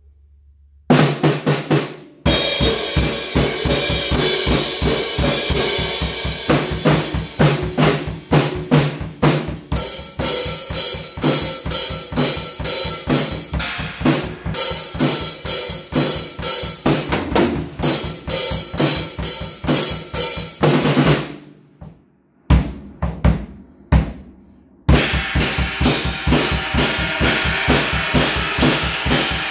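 SPL drum kit with Paiste cymbals played in a steady groove: bass drum, snare and cymbals. It starts about a second in, breaks off for a few seconds with a handful of single hits around two-thirds of the way through, then the beat picks up again near the end.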